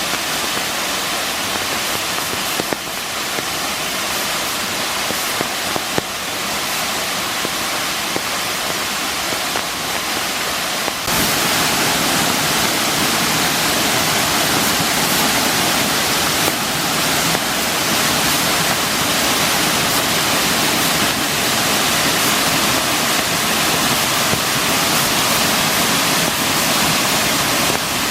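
Rain-fed waterfall rushing steadily, a temporary fall that runs only after heavy rain. It becomes louder and fuller about eleven seconds in.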